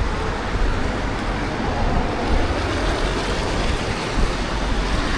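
Steady outdoor street noise: wind rumbling on the microphone, with road traffic.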